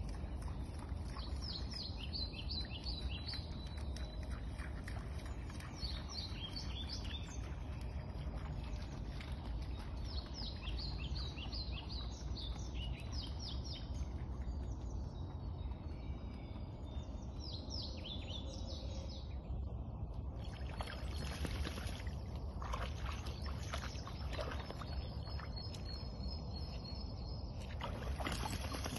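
A songbird sings repeated short phrases of quick falling notes over a steady low rumble. In the last third come irregular splashes as a golden retriever wades through stream water and mud.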